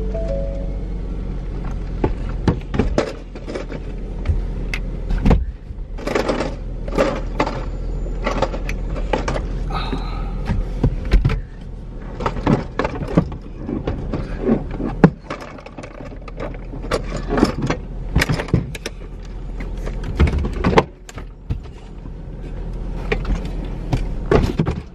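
A manual wheelchair being taken apart and loaded into a car from the driver's seat: many irregular clicks, knocks and rattles as its detached wheels and frame are handled, over a steady low hum.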